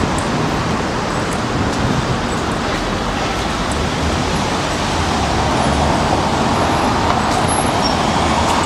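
Street traffic: cars driving past over a cobbled road, a steady rumble of engines and tyres that grows a little louder about halfway through.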